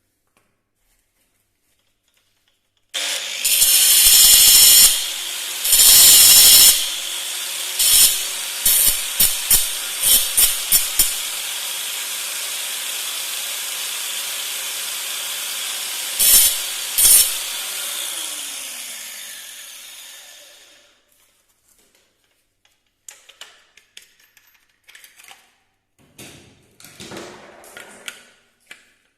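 An electric power tool starts up and runs at a steady speed, with loud bursts as it bites into the work: two long ones near the start, a quick string of short ones, and two more a little later. It is then switched off and winds down, and faint scattered taps and clicks follow.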